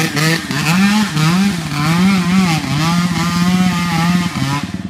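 Dirt bike engine revving hard under load on a steep dirt climb, its pitch rising and falling with the throttle, then held high for about a second before dropping away near the end.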